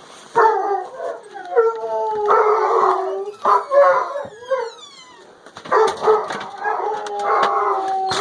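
Dogs howling in long, wavering calls that overlap, with a short break about five seconds in before they start again. They howl like this every day as the family gets ready to leave.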